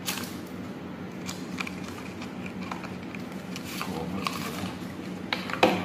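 Light clicks and scuffs of a thin cardboard box being handled and slid open, with a louder knock near the end, over a steady low hum.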